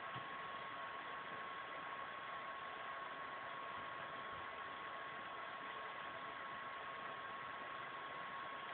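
Steady, even hiss of a recording's background noise with a faint constant high whine, unchanging throughout.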